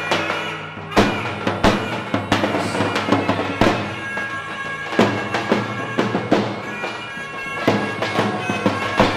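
Tupan, large double-headed bass drums, beaten with sticks in heavy strokes about once a second. Over them a loud, reedy wind instrument plays a melody above a steady drone: Balkan folk dance music.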